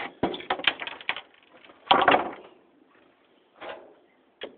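Detached ceiling fan blades knocking and clattering as they are handled and set down on the floor: a run of light knocks in the first second, one loud clatter about two seconds in, then a couple of softer knocks near the end.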